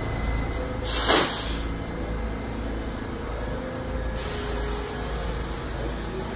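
A standing R68 subway train gives a short, sharp hiss of air about a second in, typical of its air brakes venting, over the train's steady low hum.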